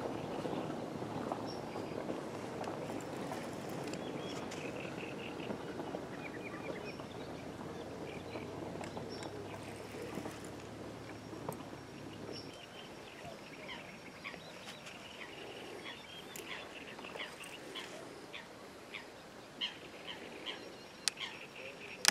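Outdoor ambience of birds chirping and calling in short repeated notes, over a low rumbling background. A faint steady hum underneath stops about halfway through.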